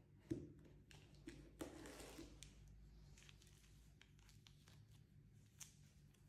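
Faint unboxing handling sounds: a soft knock about a third of a second in, then the crinkling of a clear plastic sleeve around a printed safety guide as it is picked up and turned over, with small clicks of handling.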